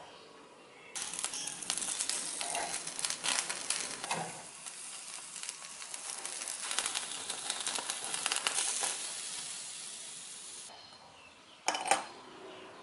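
Whole chicken sizzling and crackling as its skin chars in a wire grill basket over a gas flame, a dense hiss full of small pops that stops abruptly about ten seconds in. Near the end, candlenuts drop with a sharp clink into a glass jar.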